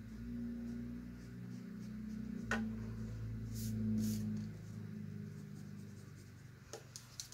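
Pencil scratching and tapping on lined notebook paper while drawing, with a sharp tap about two and a half seconds in and a brief rub of the hand across the paper a second later. A steady low hum runs underneath.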